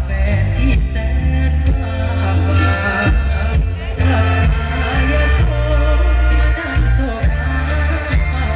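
Live Thai mor lam band music played loud through a stage PA, with a heavy, pulsing bass beat.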